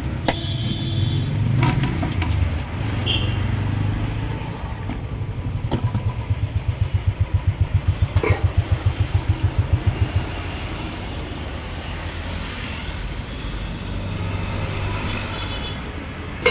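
Street traffic with a nearby motor vehicle engine running, which throbs in a rapid low pulse from about six to ten seconds in. A few sharp metal clinks of serving spoons against steel pots sound over it.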